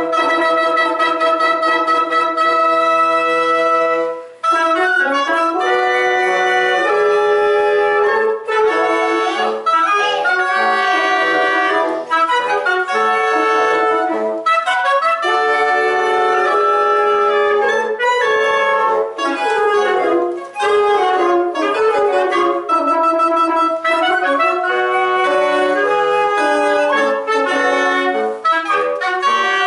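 Woodwind quintet, with flute, clarinet and bassoon among the players, playing a march arrangement live. A held chord opens, breaks off after about four seconds, and the music continues in quick, detached moving notes.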